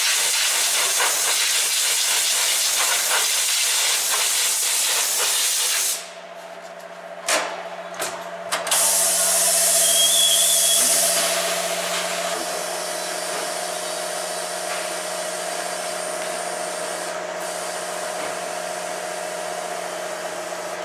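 Compressed air hissing at a tyre changer over a low steady hum. The hiss drops away about six seconds in, two or three knocks follow, then it returns with a faint steady whistle.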